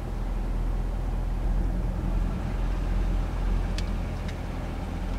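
2014 Corvette Stingray's 6.2-litre V8 rumbling at idle as the car creeps forward at walking pace, a steady low exhaust note. Two short light clicks come about four seconds in.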